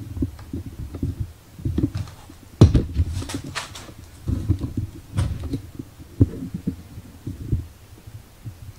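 Irregular low thumps and knocks, with a few sharper clicks, the loudest about two and a half seconds in, typical of handling noise as the camera is moved around a workbench.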